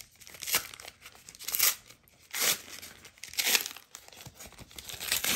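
A folded white-paper card pack being torn open by hand: several short bursts of tearing and crinkling paper, about a second apart.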